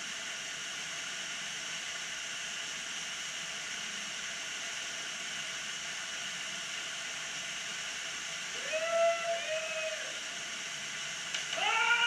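Waterfall rushing steadily. About nine seconds in, two short pitched calls rise and hold. Near the end a longer call of the same kind begins.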